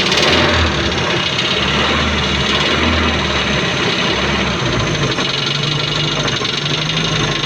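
Car engine running at idle, loud and steady, with a deeper low note that swells during the first few seconds and then eases.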